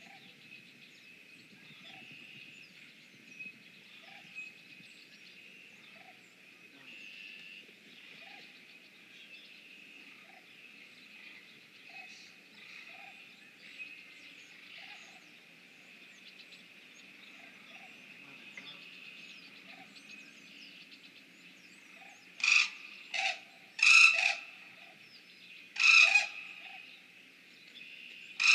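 Birds calling outdoors: faint short chirps about once a second over a steady high hiss, then five loud, short, harsh calls in the last several seconds.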